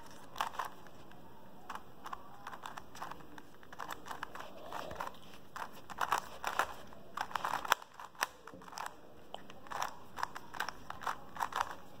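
Plastic 3x3 Rubik's cube being turned by hand, its layers clicking and clacking in quick, irregular runs of turns as an algorithm is worked through.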